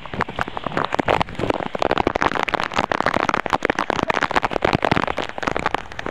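Rain: a dense, irregular crackle of drops striking close to the microphone.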